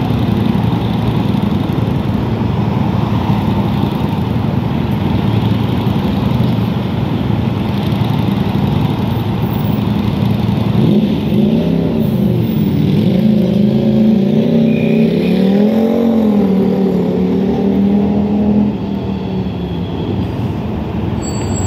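Road traffic with motorcade vehicles driving past, engines running and accelerating. From about halfway through, an engine note rises and falls in pitch, and the sound drops suddenly in level near the end.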